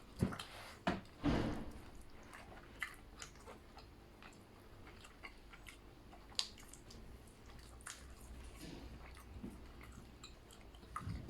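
People chewing and biting into grilled chicken: faint, wet eating sounds with scattered small clicks and smacks, a little louder in the first second or two.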